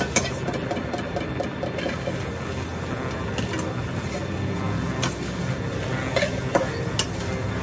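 Spatula stirring and scraping garlic and then king oyster mushroom pieces around a nonstick wok over a steady frying hiss, with a few sharp clicks of the spatula against the pan.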